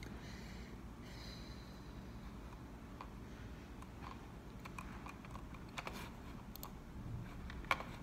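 Computer keyboard keys being pressed: scattered, irregular clicks that begin about three seconds in, with one sharper click near the end.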